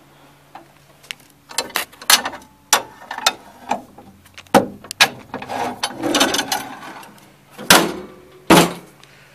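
Clicks, rattles and knocks of metal parts being handled on a John Deere compact tractor with its engine off, ending with two heavy thumps about a second apart.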